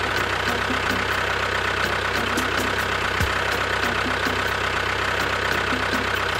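Tractor engine running steadily at idle, with an even, rapid knock.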